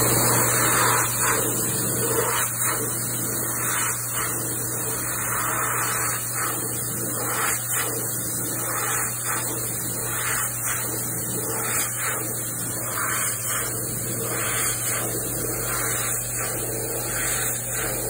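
Dyson Airblade V hand dryer running at full blast: a steady high airy hiss over a low motor hum, wavering in loudness as a hand moves in and out of the airflow.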